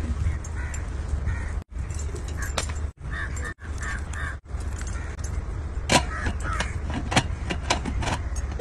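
Metal pot clinking and clattering with leaves rustling, as leaf-wrapped fish are packed into a large metal cooking pot and its aluminium lid is set on, with a few sharp knocks about six to eight seconds in. A steady low rumble runs underneath, broken by a few brief silences.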